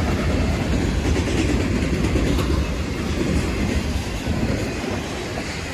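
Long freight train's cars rolling past, steel wheels clattering steadily on the rails.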